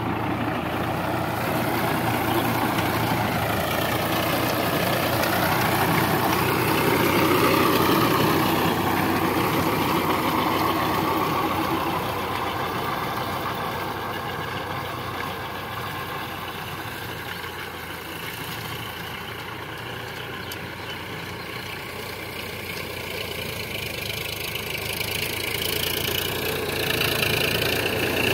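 Sonalika 745 tractor's three-cylinder diesel engine working steadily while pulling a rotavator through the soil. Its pitch rises and falls over the first ten seconds. It grows quieter in the middle, then louder again near the end as the tractor comes close.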